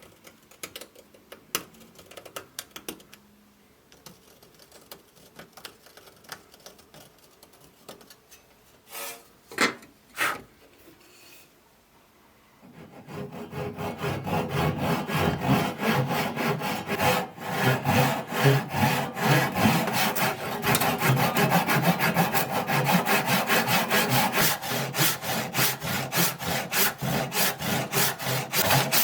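Scattered light clicks and handling knocks, two of them louder about nine and ten seconds in. From about thirteen seconds in, a steady run of fast rasping strokes of a hand tool working wood.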